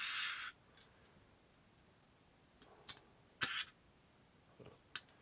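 Green gas hissing out of a freshly filled airsoft gas pistol magazine as the gas is released at the fill valve, ending about half a second in. A few sharp clicks follow, with a second short hiss a little over three seconds in.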